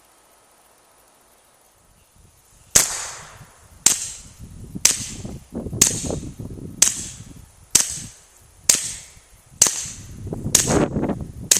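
Suppressed .22 pistol (GSG with an AWC Archangel titanium suppressor, shot dry with subsonic ammunition) firing about nine shots, roughly one a second, starting about three seconds in. The first shot is the loudest, a first-round pop, and the rest are quieter. That pattern is the sign of a can that does better shot wet.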